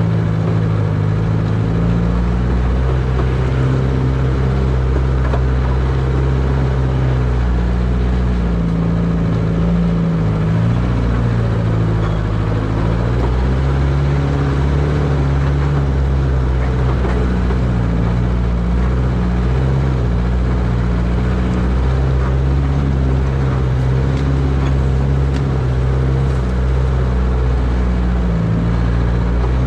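1949 Willys CJ3A Jeep's four-cylinder Go-Devil flathead engine running at low revs while crawling in low-range four-wheel drive, its note rising and falling slightly with the throttle.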